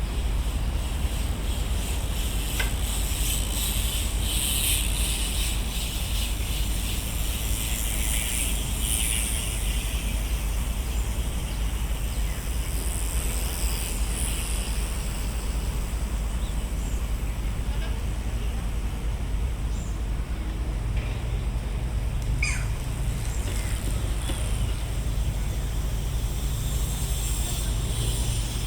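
Outdoor park ambience by a pond: a steady low rumble with a hiss that swells and fades in the first half, a few short bird chirps about two-thirds through, and a low hum that comes in at about the same time.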